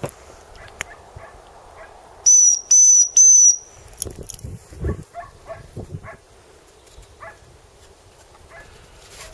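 Three short, high blasts on a gundog training whistle in quick succession, each a steady tone: a recall signal to the dogs.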